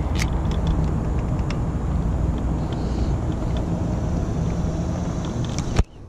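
Steady low rumble and hiss of wind and boat noise on the body-worn microphone, with a few light clicks from the baitcasting reel. The rumble drops away abruptly near the end.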